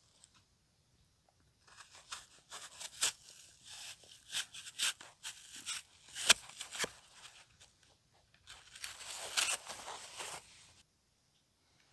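Crinkly material handled close up, rustling and tearing in fits and starts with sharp crackles, from about two seconds in until shortly before the end.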